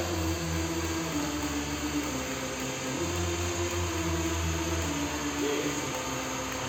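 Background music with a held bass line that steps between notes every second or two, over a steady hiss.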